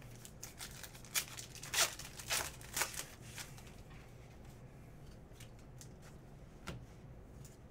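Baseball trading cards rustling and flicking against each other as a stack is handled and sorted, in a run of short swishes over the first few seconds, then only a couple more.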